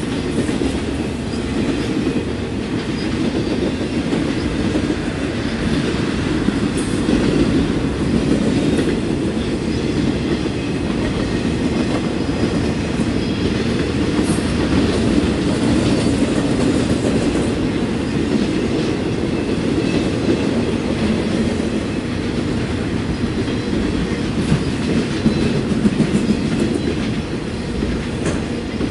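Intermodal freight cars carrying highway trailers rolling past at speed: the steady noise of steel wheels running on the rails.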